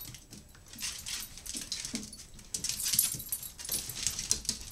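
Dogs scratching and pawing at a door, their claws clattering on it and rattling the mini blinds in quick, scrappy bursts, with a few faint whimpers.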